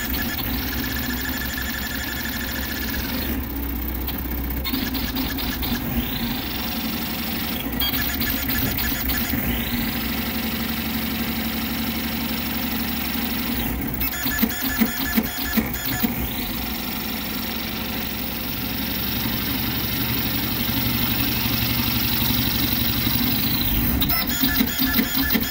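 Vz235 CoreXY 3D printer's stepper motors whining as the print head races back and forth at very high speed and 50k acceleration. The whine swells and fades with each long move and is broken every few seconds by bursts of rapid ticking and clatter as the head changes direction quickly.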